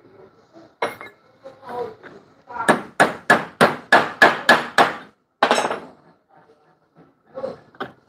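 Hammer striking a steel bus door hinge clamped in a bench vise, driving a new brass bushing into it. Two single blows, then a quick run of about ten blows, roughly three a second, one more that rings a little longer, and two light taps near the end.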